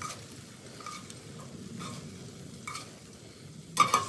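A spatula scraping pieces of beef liver out of an enamelled cast-iron braiser, with a faint sizzle underneath and a few short scrapes. A louder clatter of the spatula against the pan comes near the end.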